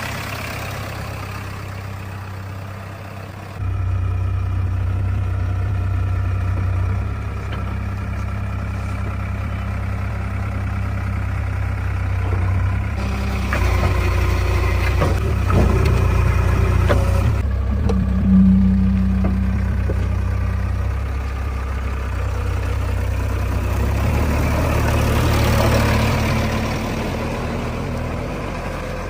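Heavy diesel engine running steadily, getting louder about three and a half seconds in, with a few knocks in the middle.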